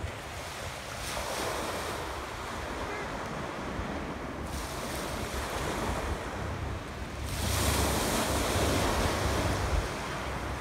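Waves washing on a shore, with wind rumbling on the microphone. The noise swells twice, the second time louder.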